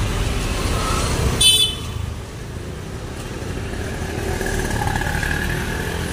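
Street traffic on a wet road: scooters and motorcycles running past with a steady rumble, and one short high-pitched horn toot about a second and a half in, the loudest sound.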